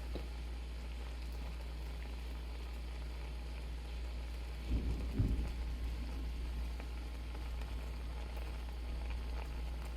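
Shrimp simmering in a pan: a steady bubbling patter over a low, even hum, with a brief low bump about five seconds in.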